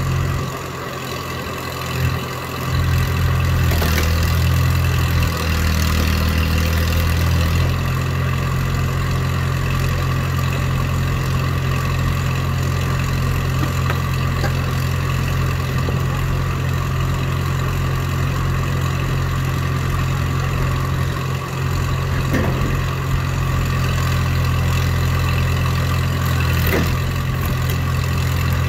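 Engine of a tracked log splitter running steadily; from about three seconds in its note grows louder and heavier for a few seconds, then settles back to a steady run. A couple of faint knocks come late on.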